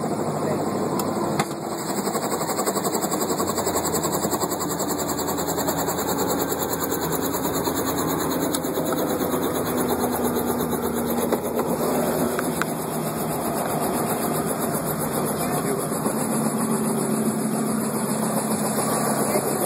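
An engine running steadily with unchanging mechanical noise, with no clear pattern of speech over it.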